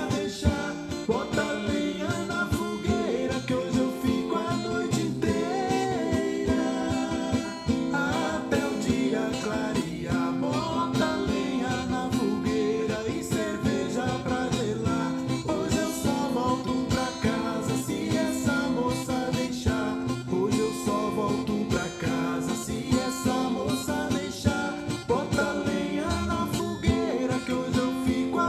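Music: guitar playing steadily with a singing voice over it.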